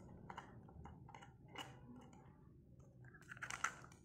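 Soft, crumbly ice block handled over a wooden bowl: faint scattered clicks and crumbling scrapes, then a louder burst of crunching near the end as a block is lifted to the mouth.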